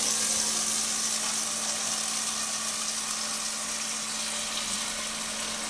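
Kitchen tap running into a plastic mixing bowl in the sink, filling it with water for soaking fruit: a steady rush of water that grows slightly quieter as the bowl fills.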